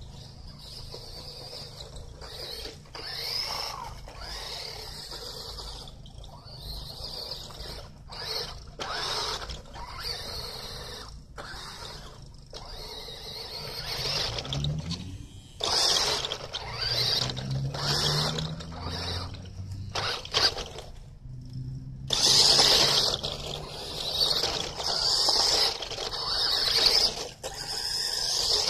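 Toy RC car's small electric motor and gears whining as it drives over sand and dirt, the pitch rising and falling with the throttle. It gets louder as the car comes close, most of all in the last few seconds.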